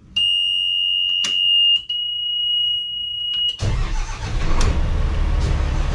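A helm warning buzzer sounds a steady high electronic tone as the ignition keys are turned, with a few key clicks. About three and a half seconds in it stops as the yacht's Iveco marine diesel engine starts and settles into a steady low running rumble.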